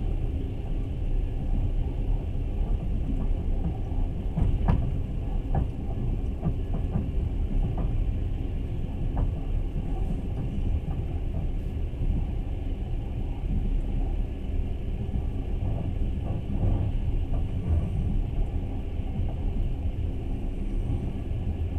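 Passenger train running along the track, heard from inside the carriage: a steady low rumble with a few short clicks, mostly around five to nine seconds in and again around sixteen seconds.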